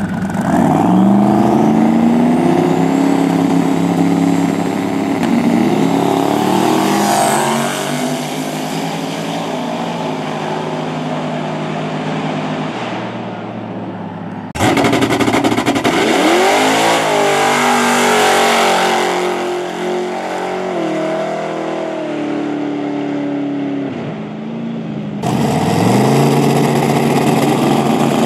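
Drag race cars launching and accelerating hard down the track, engines revving up in rising pitch and dropping back at each gear change. Three separate runs follow one another, each starting abruptly.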